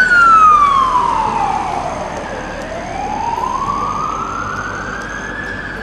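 Fire truck siren wailing: one slow sweep that falls in pitch over about two seconds, then rises again over the next three, loudest at the start.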